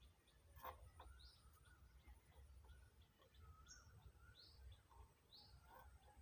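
Near silence with faint bird chirps in the background, short sweeping calls scattered throughout, and a faint click about two-thirds of a second in.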